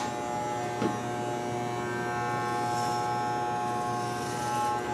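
Electric hair clippers with a guard comb fitted, running with a steady buzz as they cut hair at the side of the head. A light tap about a second in.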